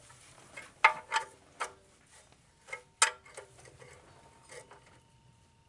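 A metal wrench clinks against the oil drain plug and pan while the plug is being turned back in. About nine sharp metallic clicks, some ringing briefly, come irregularly over the first four and a half seconds.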